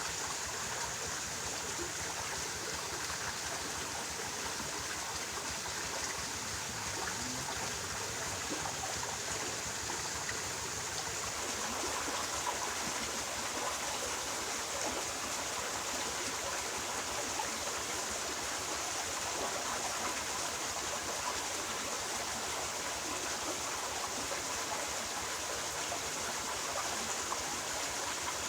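Steady rush of flowing stream water, an even, unbroken hiss.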